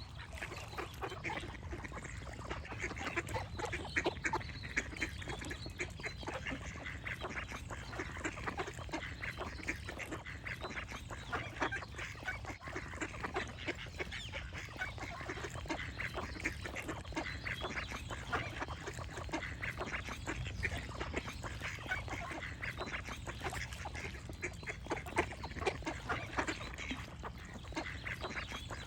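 A flock of ducks quacking and calling without a break, many short calls overlapping one another.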